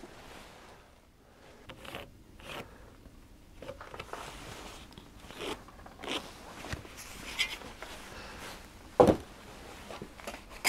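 Sawn timber boards being handled: scattered light knocks and scrapes of wood on wood, with rustling, and one sharper knock about nine seconds in.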